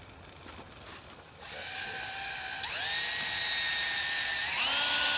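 A power drill starts about a second and a half in and runs steadily, its whine stepping up in pitch twice as it speeds up, driving a screw into the effects rig.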